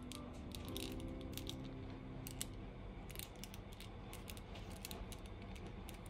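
Light, irregular plastic clicks and ticks from an S.H.Figuarts Guts Berserker Armor action figure as it is handled and posed, with its joints and armor pieces clicking under the fingers.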